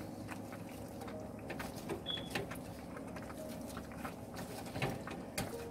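Cooked penne being stirred and folded into a thick cheese sauce in a frying pan: a continuous run of soft, wet clicks and scrapes.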